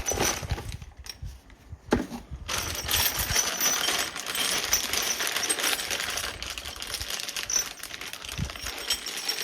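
Bike-rack packaging and parts being handled: a few knocks, then about six seconds of dense rattling and crinkling clatter.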